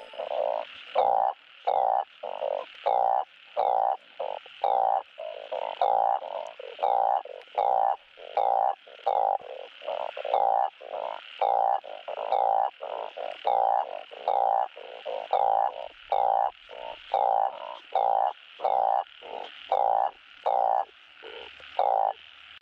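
Truncate-snouted burrowing frog (Glyphoglossus molossus) giving its mating call: short croaks repeated about twice a second in a steady series.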